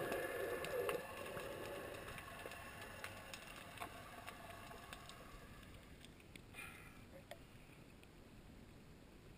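Muffled underwater ambience heard through a waterproof camera housing: a faint hiss with scattered small clicks, loudest at first and fading away.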